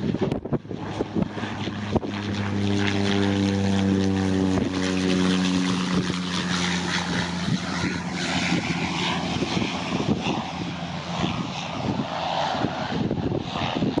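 Cessna 208 Caravan's single turboprop engine and propeller on landing approach, a steady propeller drone with a low hum that builds in about two seconds in and fades out near the end as the aircraft passes.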